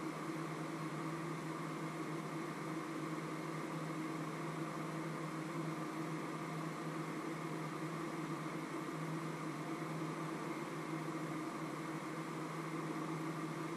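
Steady machine hum with a hiss.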